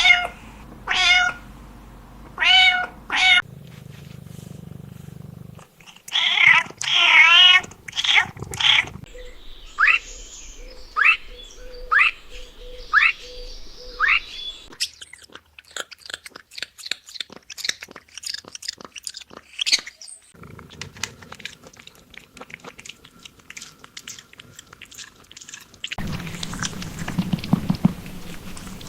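Cat meowing in short runs of loud meows, followed by a string of short high squeaks that fall in pitch, about one a second. Then rapid crunching clicks like chewing, and a louder noisy stretch near the end.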